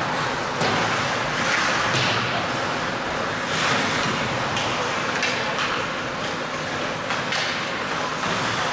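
Ice hockey play on the rink: skate blades scraping the ice in repeated surges, with scattered knocks of sticks, puck or boards over the rink's background noise.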